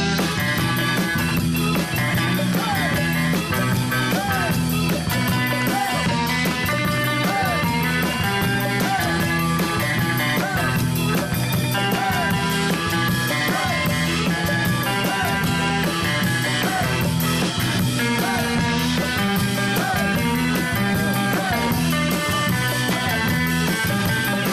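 Background music: an upbeat pop song with a steady beat.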